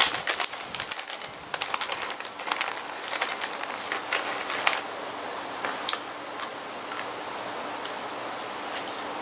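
Snack mix of peanuts, chocolate-covered raisins and coconut being sprinkled from a bag onto sliced apples: many quick small clicks at first, thinning out to scattered single clicks.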